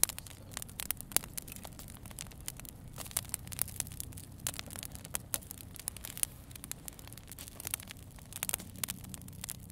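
Wood campfire burning, crackling with irregular sharp pops and snaps over a low steady hum.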